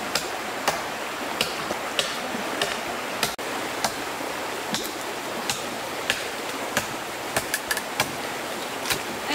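Steady rush of running stream water, with sharp knocks recurring about every two-thirds of a second.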